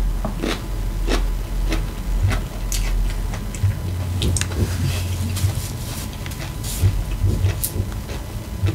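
Close-miked chewing of a mouthful of taco salad with crunchy Doritos chips: irregular crisp crunches mixed with wet chewing, over a steady low hum.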